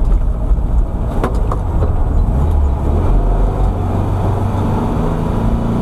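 A 1964 VW Beetle's air-cooled flat-four engine running under way, heard from inside the cabin over road rumble. About halfway through, a steady engine hum rises above the rumble.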